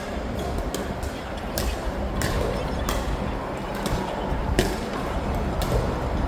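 Pickleball paddles striking a plastic ball in soft dink exchanges: sharp pops every half second to a second, some louder than others, over steady background noise.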